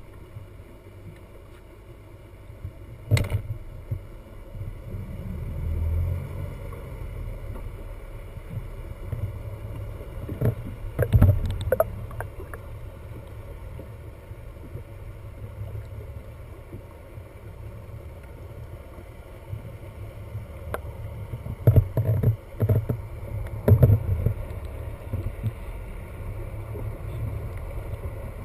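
Muffled underwater sound picked up through a waterproof camera housing: a steady low rumble, broken by a few sharp knocks and clicks, the loudest about three seconds in, around eleven seconds, and in a cluster late on.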